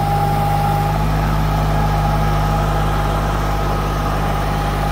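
Kubota compact tractor's diesel engine running at a steady speed, a low hum with a steady high whine above it.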